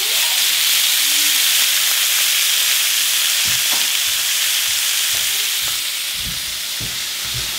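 Two steaks searing in a hot stainless steel pan with no oil, sizzling steadily; the sizzle eases slightly in the second half, with a few soft low thumps.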